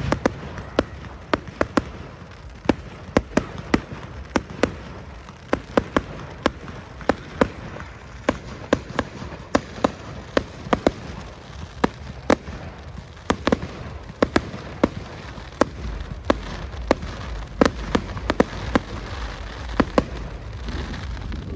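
Fireworks display: a rapid, irregular string of sharp bangs, about two a second, over a low background rumble.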